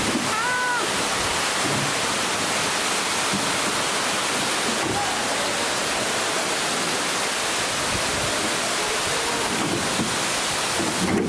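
A waterfall's falling water, a loud, steady, even rush.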